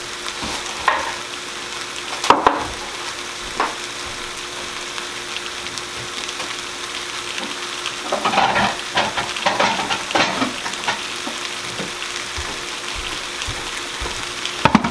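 Flour-dusted stew beef sizzling steadily as it browns in a stainless steel skillet. A few short knocks in the first four seconds and a run of clatter from about eight to eleven seconds in, as kitchen things are moved about.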